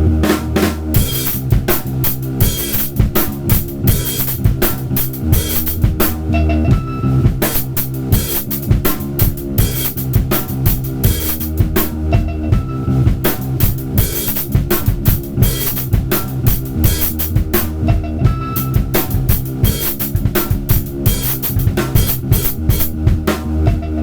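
Drum kit played in a busy improvised pattern of rapid hits over a sampled music track with held bass notes.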